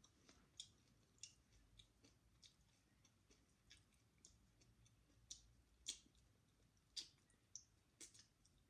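Faint, irregular wet clicks and smacks of a person eating by hand and chewing, roughly one or two a second, with a few sharper clicks in the second half.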